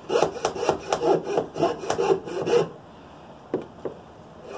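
Coping saw cutting a pine block with quick back-and-forth strokes, about four a second. The strokes stop a little over halfway through, and a couple of light knocks follow.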